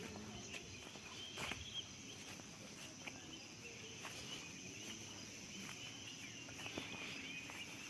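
Faint, steady insect chirring, with a high, even tone above it and a wavering chirping lower down, plus a few scattered soft clicks.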